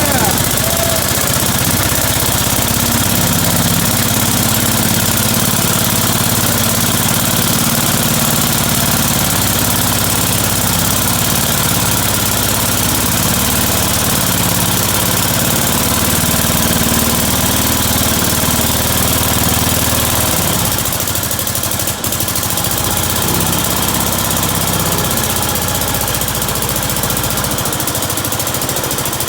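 Small single-cylinder engine of a vintage Gravely walk-behind tractor running steadily, easing slightly about 21 seconds in.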